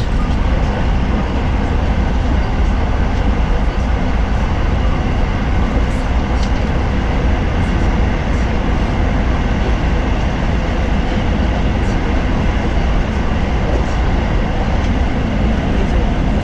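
Running noise of a JR Special Rapid Service electric train heard from inside the car at speed: a steady low rumble with a few faint ticks.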